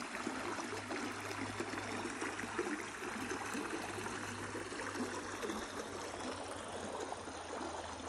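Shallow creek water running and trickling over a flat slate and stone bed, a steady even rush without breaks.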